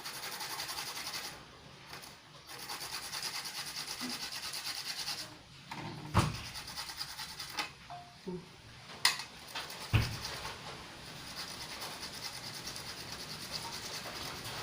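A root being grated on a hand grater: quick, even rasping strokes in several runs with short pauses. Three sharp knocks come between the runs, about 6, 9 and 10 seconds in.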